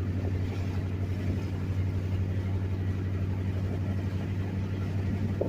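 Steady low drone of a truck driving, heard from inside the cab: engine and road noise.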